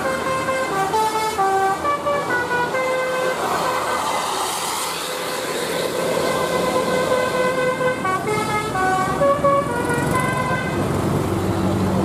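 Bus telolet musical horn of the Basuri type playing a melody: a quick run of horn notes stepping up and down, a longer held note, then another run near the end, over the noise of passing traffic.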